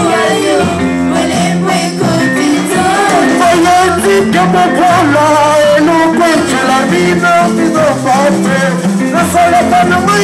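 Live church praise music: an electronic keyboard and percussion playing a steady rhythm under sung vocals.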